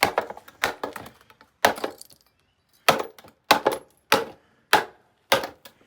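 A series of about eight sharp knocks and clanks on hard objects, spaced roughly half a second to a second apart.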